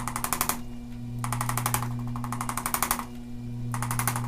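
Handheld electric percussion massage instrument tapping rapidly on the back muscles, in three bursts broken by short pauses of under a second, over a steady motor hum.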